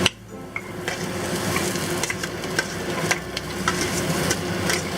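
Stir-frying in a pan over medium-high heat: oil and food sizzling steadily while a spatula stirs, with scattered light clicks of the spatula against the pan and a sharper click right at the start.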